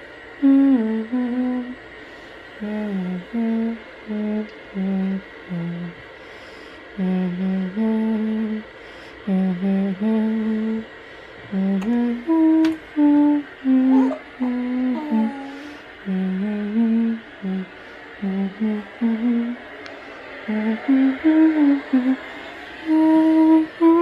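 A person humming a tune: a string of separate steady notes moving up and down in short phrases with brief pauses between them.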